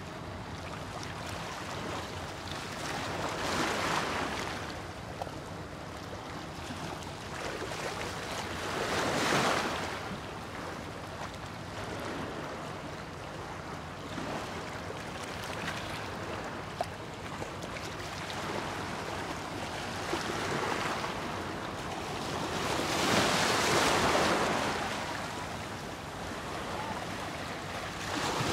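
Small sea waves washing over a rocky, seaweed-covered shore. The wash runs steadily and swells in several surges a few seconds apart as waves break around the rocks.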